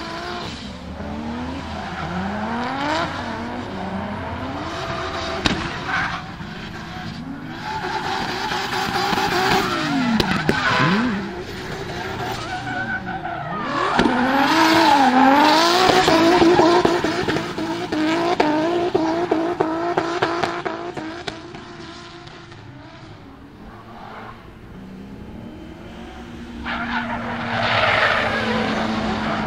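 Drift car engines revving hard, the pitch sweeping up and down again and again, over the hiss and squeal of tyres sliding sideways. It eases off for a few seconds before another car comes in loud near the end.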